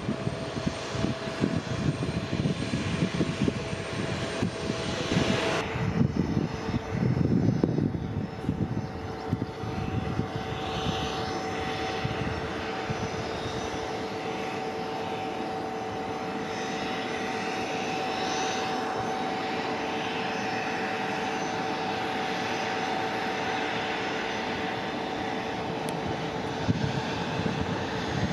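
Bombardier CRJ900 regional jet running with a steady jet whine, holding a couple of steady tones, over a gusty low rumble. The sound changes abruptly about five seconds in, then settles to a steadier whine.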